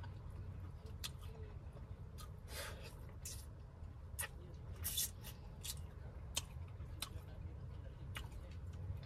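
Fingers peeling and cracking shell-on seafood from a seafood boil and chewing, a sharp crackle or click every half second to a second, over a steady low hum.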